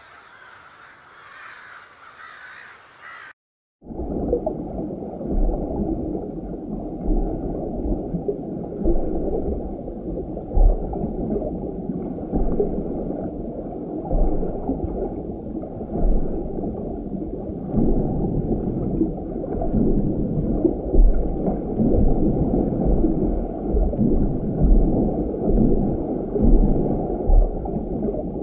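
Muffled rushing and gurgling of aquarium water, with everything above a low, dull band cut away and frequent low bumps. It starts loud after a short silent gap about three and a half seconds in; before the gap there is only a quiet background where a crow is feeding.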